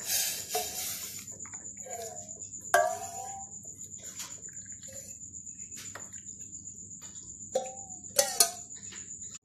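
Milky tea poured from a steel pan through a metal tea strainer into glass cups: a splashing pour, loudest in the first second, with a few sharp clinks of metal against glass.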